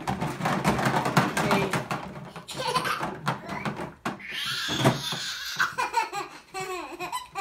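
Plastic toy kitchen rattling and clattering as a toddler shakes it by its handle, a rapid clatter over the first couple of seconds. Toddler laughter follows.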